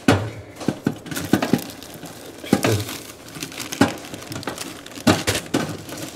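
Plastic bag packaging crinkling and rustling as it is handled, with irregular crackles and a few dull knocks.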